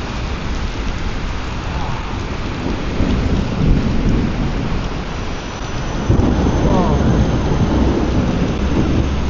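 Torrential monsoon rain pouring down in a thunderstorm, a dense steady hiss, with deep rumbling swells about three and six seconds in.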